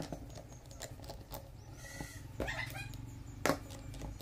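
Sharp metallic clicks and taps of a chuck key and drill bit against an electric drill's keyed chuck as a bit is fitted, the loudest click about three and a half seconds in. A short animal call sounds in the background about midway.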